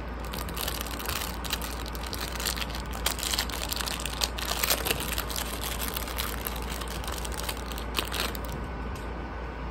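Clear plastic wrapper crinkling and crackling in irregular bursts as it is handled and pulled open to get a pin out. The crinkling dies away near the end, leaving a steady low hum.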